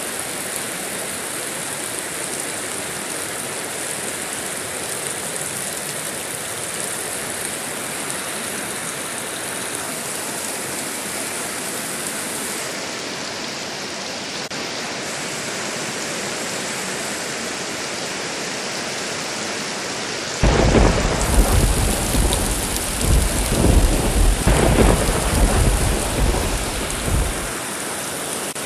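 Steady rain throughout, with a sudden loud clap of thunder about two-thirds of the way in that rumbles in several swells for around seven seconds before dying back under the rain.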